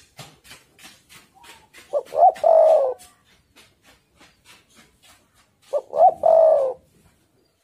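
Spotted dove cooing: two phrases about four seconds apart, each two short notes followed by a longer note that falls in pitch.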